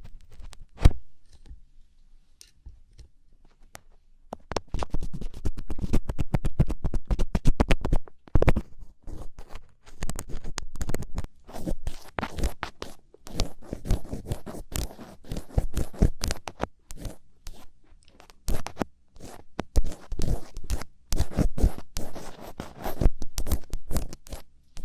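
Thin ear pick scratching and scraping inside an ear close to the microphone, in dense runs of quick scratchy clicks. One sharp click comes about a second in, then a quieter couple of seconds before the scratching starts up again.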